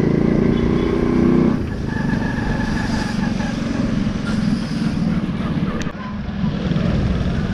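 Small motorcycle's engine running while riding along a street. The engine note drops about one and a half seconds in, then runs on steadily, with a short click near six seconds.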